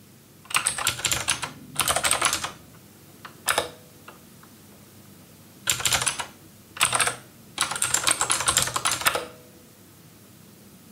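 Typing on a computer keyboard: rapid keystrokes in about six short bursts, with pauses between them.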